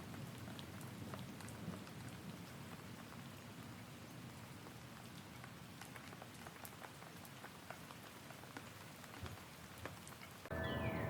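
Steady rain with many separate drops ticking. About half a second before the end it cuts off suddenly to a louder sound of steady tones and quick falling whistles.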